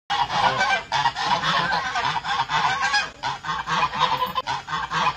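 Domestic geese honking, a rapid, irregular series of short calls.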